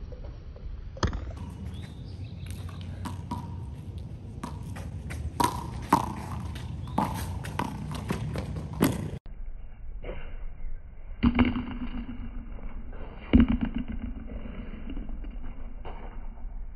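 A rubber handball smacking against a concrete wall and court during a rally: a quick string of sharp smacks and taps, then after an abrupt change about nine seconds in, a few louder, duller thuds.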